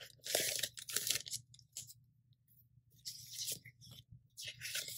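Clear plastic sleeves of dot-sticker sheets and a paper sticker card being handled, crinkling and rustling. There is a spell of it in the first second, a quiet stretch, then more rustling near the end.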